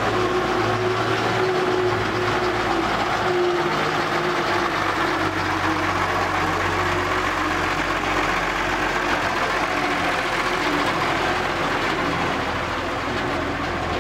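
Flatbed tow truck's engine running steadily as the truck drives slowly past, carrying a recovered VAZ-2101 Zhiguli on its bed.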